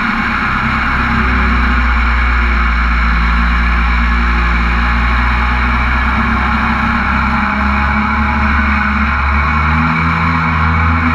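A mini jet boat's engine running steadily while the boat travels at speed, with small shifts in engine pitch, over a constant rush of wind and water.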